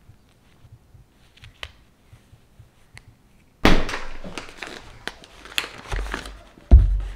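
Faint gnawing clicks of a small dog chewing a rope-and-plush strawberry toy. About halfway through, loud crinkling of plastic food packaging as a bagged loaf of bread and a bag of shredded cheese are handled on a table, with a heavy thud near the end as something is set down.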